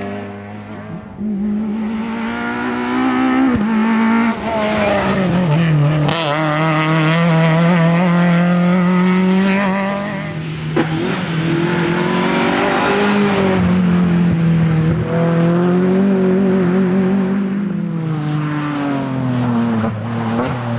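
Rally car engines at full attack, loud throughout, the engine note climbing and dropping again and again as the drivers rev up and shift gears.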